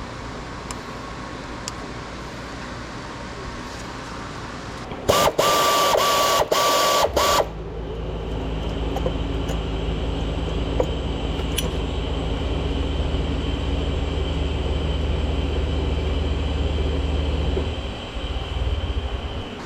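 Nissan Serena C25's four-cylinder petrol engine being started: a loud starter-motor whine and crank about five seconds in, then the engine catches and idles steadily for about ten seconds before it is switched off near the end.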